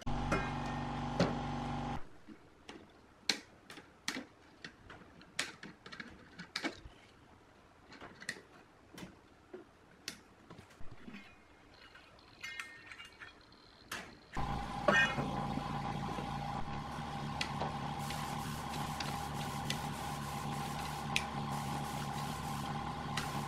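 Hands dismantling a large power amplifier: scattered sharp clicks and knocks of metal panels, parts and tools being handled. A steady machine hum sounds for the first couple of seconds and again from a little past the middle onward.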